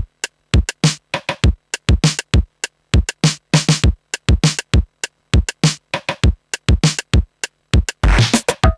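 Isla Instruments S2400 sampler drum machine playing a sequenced beat at about 100 BPM from loaded samples: quick, dry drum hits, deep kicks mixed with bright high hits in a steady pattern. Near the end a noisy wash and a short pitched sample come in.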